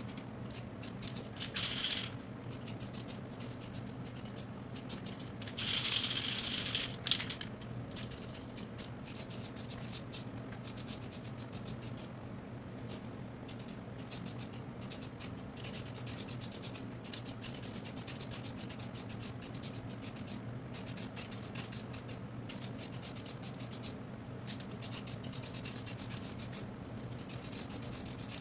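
Hand sanding on a primed dash pad: a long run of quick, even rubbing strokes. Two short hissing bursts come within the first seven seconds, over a steady low hum.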